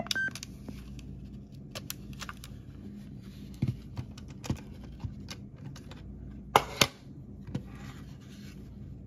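Small plastic clicks and handling noises from a Sony Walkman cassette player as its buttons are pressed, the cassette door is opened and the tape is lifted out, over a faint steady hum. A sharp double click about two-thirds of the way through is the loudest.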